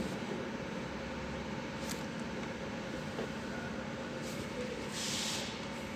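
Steady low background noise, with a light click at the start and a short hiss about five seconds in.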